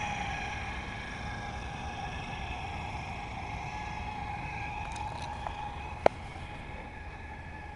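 Battery-powered electric motor of a radio-controlled model tugboat whining steadily, slowly fading as the boat moves away, with one sharp click about six seconds in.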